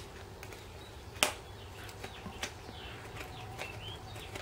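Scissors cutting through the sealed plastic of a CGC comic book holder: a few sharp snips, the loudest about a second in and another about halfway through, with smaller clicks between. Birds chirp faintly in the background.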